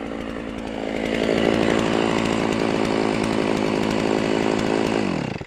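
Stihl MS660 two-stroke chainsaw running steadily, growing louder about a second in, then switched off near the end, its pitch dropping as the engine stops.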